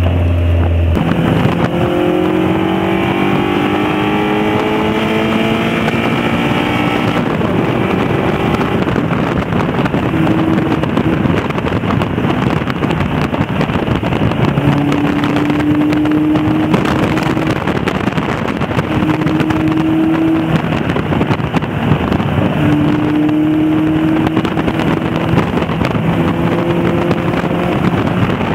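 Caterham Seven's engine driving along, its pitch rising as the car accelerates in the first several seconds, then holding a steadier cruising note that comes and goes. Wind and road noise rush past the open cockpit throughout.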